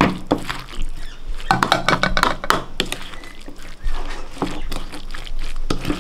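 A steel spoon stirring a thick, wet mango pickle mix of chopped raw mango and chilli masala in a plastic bowl, with repeated scrapes and taps of the spoon against the bowl.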